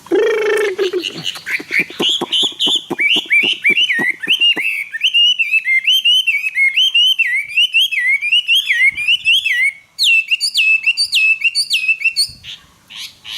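Chinese hwamei singing loudly: a long run of quick, repeated sliding whistled phrases, then after a brief break about ten seconds in, a higher series of sharp down-slurred notes. It opens with a harsh buzzy note, and sharp clicks sound through the first half.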